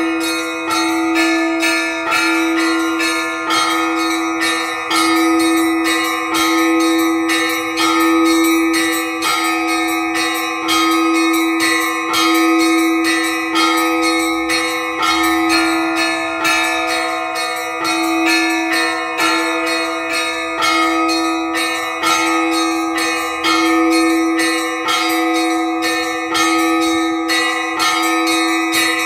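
Orthodox church bells rung in a simple repeating cycle: small bells struck in a quick, even rhythm of a few strikes a second over a lower bell that keeps ringing.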